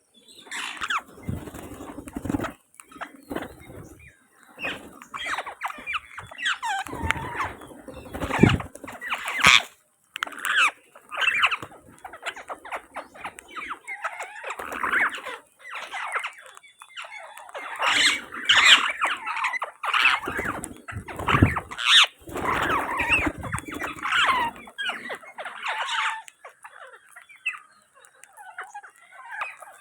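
Indian ringneck parakeets giving short, squealing squawks and chattering calls in irregular bursts, with brief pauses between them. A few dull low thumps are mixed in.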